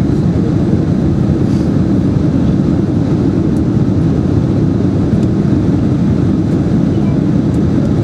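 Steady low rumble of engines and rushing air inside the cabin of a Boeing 767-300ER descending toward landing, even and unchanging throughout.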